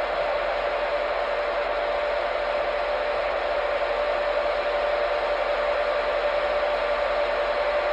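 CB radio static: a steady hiss from the receiver with a steady whistle tone running through it, and no voice on the channel.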